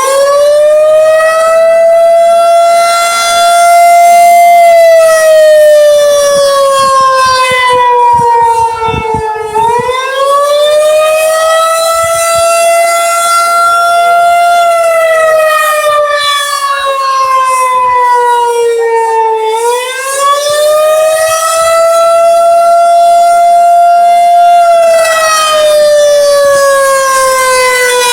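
Outdoor tornado warning siren sounding a test up close: a loud wail with many overtones, its pitch climbing quickly and then sliding slowly down, three times over, about every ten seconds.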